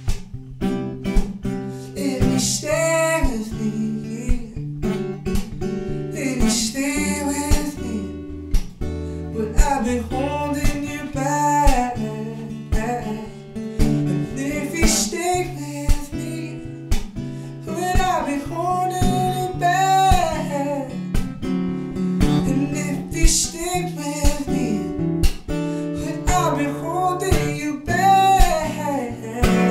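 A man singing with gliding, held notes over a strummed acoustic guitar.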